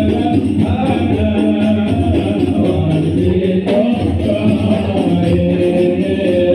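Sholawat, devotional songs praising the Prophet, sung by a group of voices to continuous tambourine-like hand percussion.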